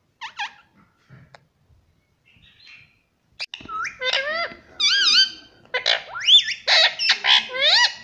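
Indian ringneck parakeet calling: two short whistled chirps at the start, then from about three and a half seconds in a rapid, loud run of whistles and chatter, many notes sliding up and down in pitch.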